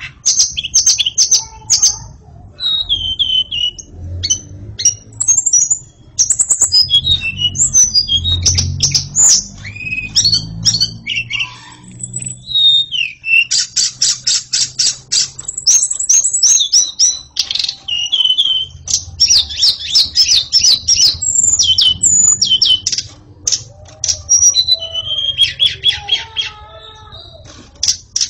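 White-rumped shama singing loudly and almost without pause: a fast, varied run of high whistles, slurred phrases and chattering trills of rapidly repeated notes, broken only by a couple of short gaps.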